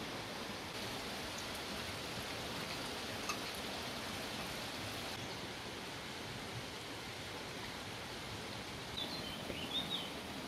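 Steady, even rushing background noise of an open-air ambience, with a few short bird chirps near the end.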